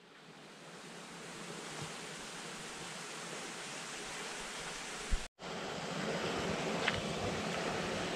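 A shallow stream running over stones makes a steady rushing wash. It fades in, breaks off for an instant about five seconds in just after a low thump, then carries on.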